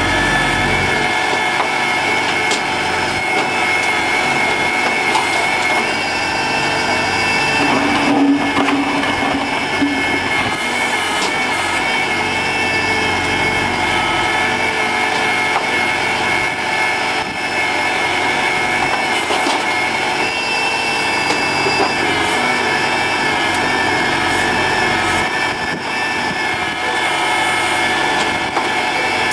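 Diesel engine of a TAFE tractor-mounted backhoe loader running steadily while the backhoe digs and lifts soil.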